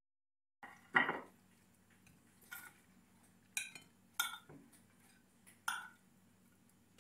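A metal spoon clinking against a glass baking dish and ceramic plates as roast potatoes are served out, about five separate clinks and knocks, the loudest and longest about a second in.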